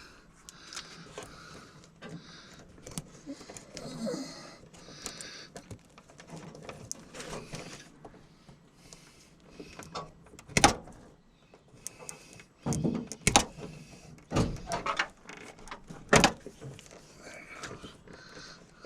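Hands-on handling noises: rustling and shuffling, with several sharp knocks and clunks in the second half, the loudest about ten seconds in and again near the end.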